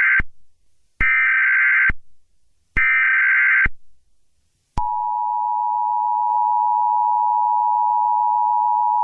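Emergency Alert System SAME header data bursts: the end of one, then two more harsh digital bursts about a second long each. About a second later the steady two-tone EAS attention signal begins and holds.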